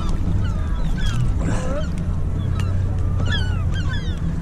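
Gulls calling: many short, falling cries overlapping, with a harsher squawk about a second and a half in, over a steady low rumble.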